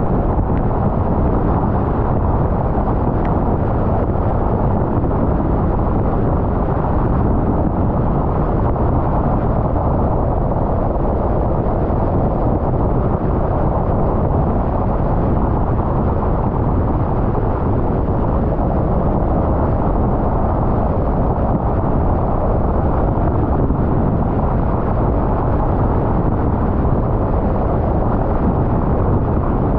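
A car driving at a steady speed, a constant low rumble of road and engine noise.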